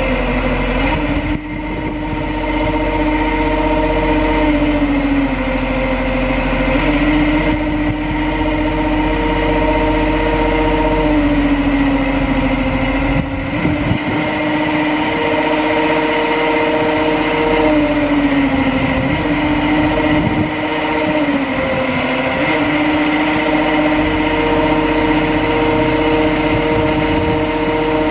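Digger derrick truck's engine running with its hydraulics working as the boom is operated: a steady machine hum whose pitch sags briefly and recovers several times as functions are engaged.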